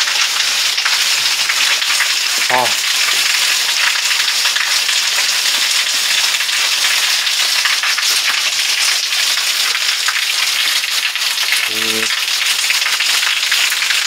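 Small waterfall, thin streams pouring down a rock face and splashing onto rocks below: a steady, dense hiss.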